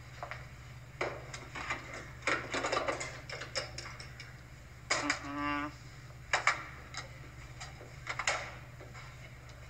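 Coffee vending machine being worked: scattered clicks and knocks of its buttons and mechanism, with a short buzz about five seconds in as it dispenses a cup. Heard through a television's speaker over a steady low hum.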